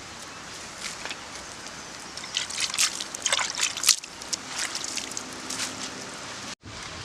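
Wet sloshing and trickling of liquid, with a dense run of sharp crackles through the middle.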